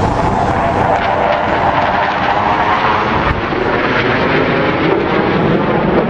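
Jet engine noise from the U.S. Air Force Thunderbirds' F-16 Fighting Falcons, four flying in diamond formation: a loud, steady sound whose tone shifts slowly.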